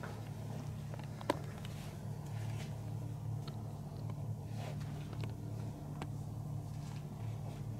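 Hands rubbing and massaging skin close to the microphone, soft friction with scattered small clicks and one sharper click about a second in, over a steady low hum.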